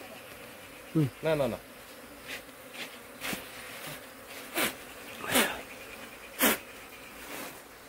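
Honeybees from an opened hive buzzing steadily around a comb-covered frame, with several brief louder sweeps over the buzz.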